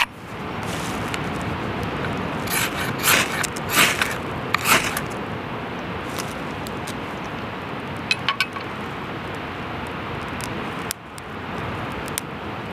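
Ferrocerium rod scraped hard along the spine of a bushcraft knife to throw sparks into a tinder bundle: about four sharp rasping strokes in a couple of seconds, then a few lighter scrapes, over a steady background rush.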